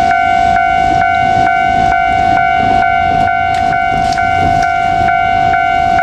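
Japanese level-crossing warning bell ringing steadily, a little over two strokes a second. A KiHa 47 diesel railcar runs underneath it with a low rumble.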